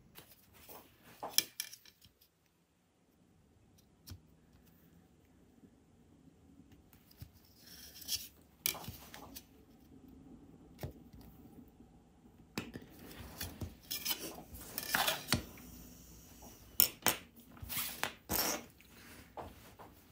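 Hand tools and materials handled on a workbench during leatherwork: irregular metallic clinks, knocks and short scrapes, busiest in the second half.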